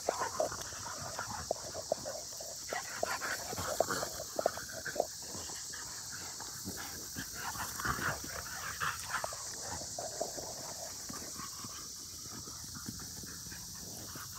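Belgian Malinois–Dutch Shepherd cross puppy and a larger dog playing, making short, irregular dog noises that come thick for about the first ten seconds and then thin out, over a steady high hiss.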